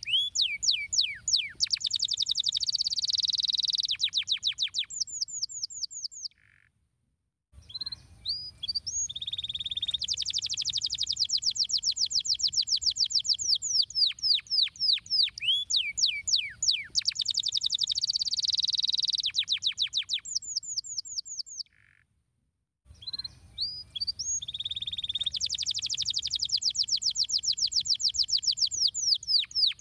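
Domestic canary singing: long phrases of rapid falling whistled notes and fast rolling trills, broken twice by short pauses.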